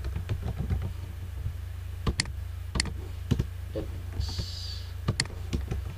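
Computer keyboard typing: irregular keystrokes with a few sharper clicks, over a steady low hum.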